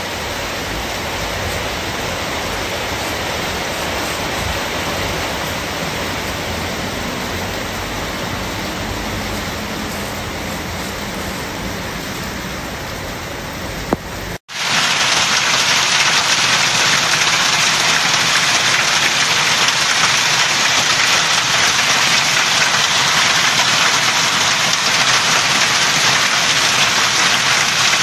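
Floodwater rushing, a steady wash of noise with a low rumble. About halfway through it cuts off, and a louder, even hiss of hail and heavy rain falling takes over.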